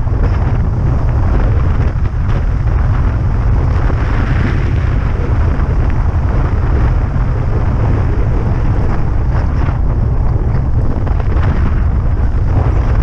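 Wind buffeting the microphone of a camera on a moving bike: a steady, loud low rumble with a rushing noise over it.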